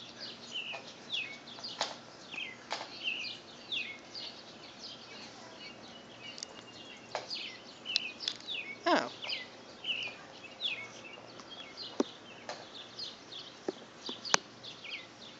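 Birds chirping: many short, quick downward chirps repeating throughout, with a longer falling note about nine seconds in and a few sharp clicks.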